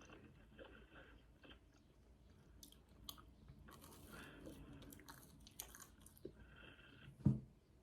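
A person chewing crunchy food close to the microphone, with scattered short crackles, and a single low thump near the end.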